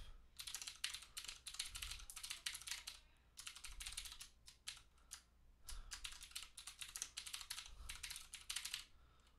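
Computer keyboard being typed on quickly: fast runs of keystrokes broken by two short pauses, stopping shortly before the end.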